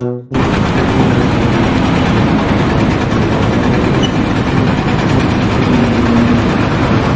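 A loud engine running steadily, setting in abruptly just after a short burst of music stops.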